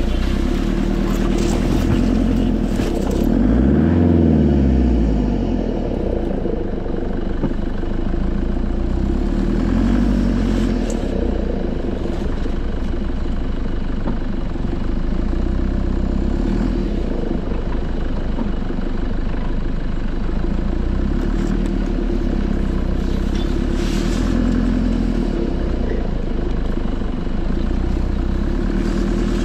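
Nissan Patrol Y61 4x4's engine driving slowly off-road, running steadily with a brief rise and fall in revs about four seconds in and again near ten seconds. Branches scrape and clatter against the body during the first few seconds.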